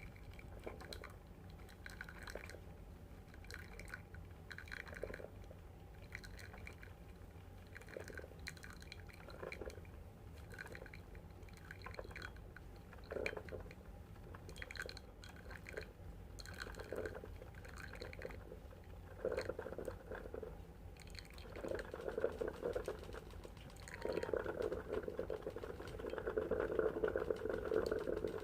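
Black+Decker one-cup drip coffee maker brewing: irregular gurgles and drips, turning near the end into a steadier, louder bubbling as the water heats through.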